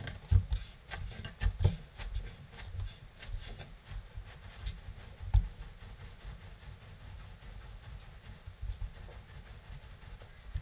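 Hands pressing and rolling soft boilie dough into a log on a wooden cutting board: soft rubbing with irregular dull thumps, busiest in the first couple of seconds, then a steadier, quieter rolling rub.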